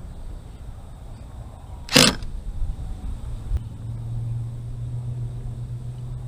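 A single sharp knock about two seconds in, over a low rumble, then a low steady hum that comes up about a second later and holds.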